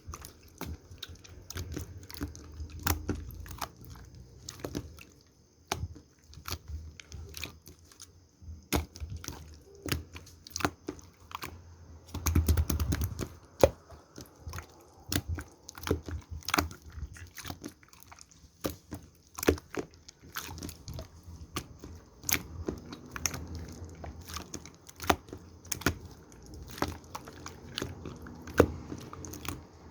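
Slime being squeezed and poked by hand, making many irregular small clicks and pops.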